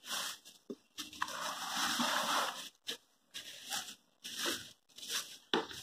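Plastic bag wrapping a helmet rustling and crinkling as hands handle it inside a cardboard box, in short irregular bursts.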